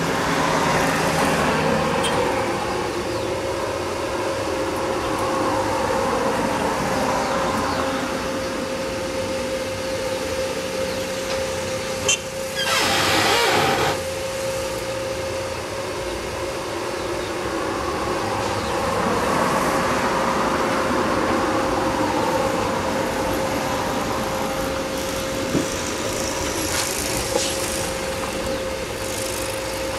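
Road traffic going by: vehicle noise swells and fades twice over a steady hum, with a short loud hiss near the middle.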